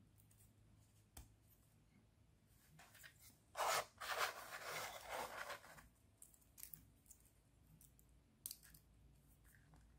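Black 3D-printed plastic puzzle pieces scraping and clicking as the slotted parts are pushed together by hand, with a two-second stretch of scraping about four seconds in and a few light clicks.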